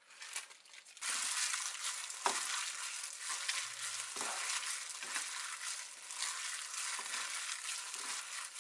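Firm tofu being crumbled and mashed by hand in a stainless steel bowl: a dense, steady crackle of a disposable plastic glove crinkling and the tofu squishing, with a couple of sharper knocks along the way.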